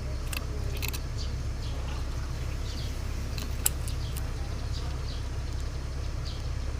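Cucak ranting bird giving short, scattered chirps over a steady low hum, with a sharp click about three and a half seconds in.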